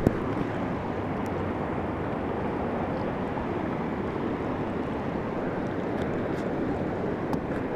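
River water running fast over a concrete ledge, a steady, even rush.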